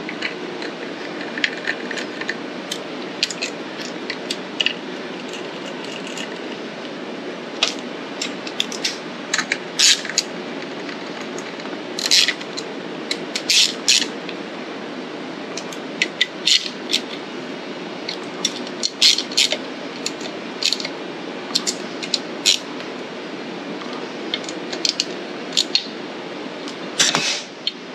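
Irregular metallic clicks and ticks of an 8 mm driver tool working on valve cover bolts on a small engine, as the bolts are run in and tightened, over a steady low hum.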